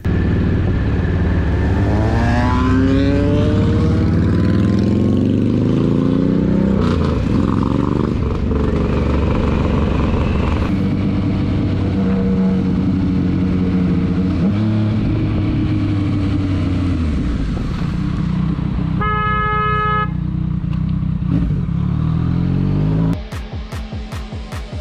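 Motorcycle engine sound, starting with a Harley-Davidson Pan America 1250's V-twin revving up as it pulls away. Another motorcycle follows, running steadily, with a car horn blaring for about a second around nineteen seconds in. Near the end it drops to quieter riding.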